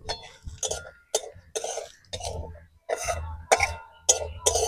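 Whole spices and cumin seeds crackling and spitting in hot oil in an aluminium kadai, in irregular short bursts about two a second.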